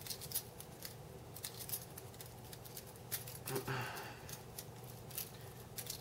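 Balisong (butterfly knife) being flipped through rollovers: a string of light, irregular metallic clicks as the swinging handles knock against the blade. There is a short rustle about three and a half seconds in.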